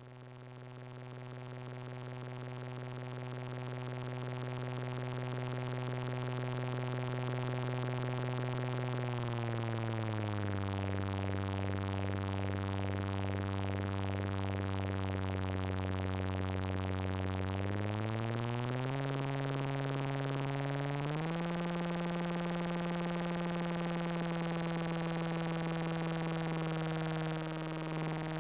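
Studio Electronics Boomstar 4075 analog monosynth holding one sustained buzzy note that swells in over the first few seconds. About ten seconds in the pitch slides down and holds, then steps back up around eighteen seconds and again around twenty-one seconds to a higher note that is held to the end.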